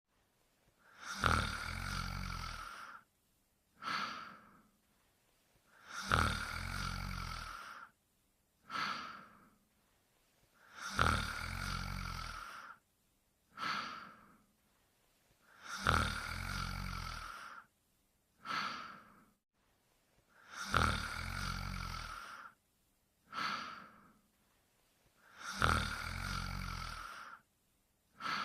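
The Pink Panther snoring in a steady, even cycle. Each cycle is a long snore in with a low flutter, then a short breath out about a second later. It repeats about every five seconds, six times.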